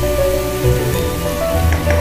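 Chicken wings and chopped onion sizzling in a frying pan, under background music with a steady bass line.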